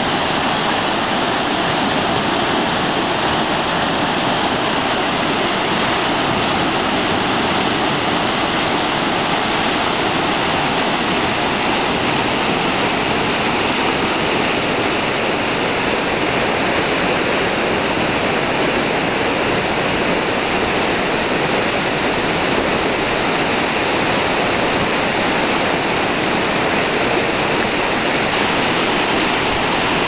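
River in flood, swollen with typhoon rain: a loud, steady rush of muddy, turbulent water tumbling over standing waves.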